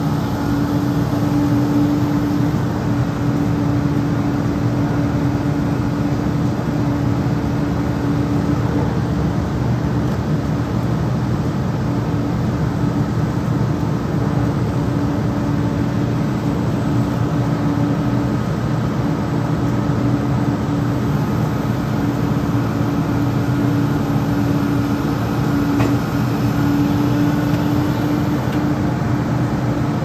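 Truck-mounted knuckle-boom grapple crane at work: the engine and hydraulic pump drone steadily under load, with a steady humming tone that swells now and then as the boom moves logs.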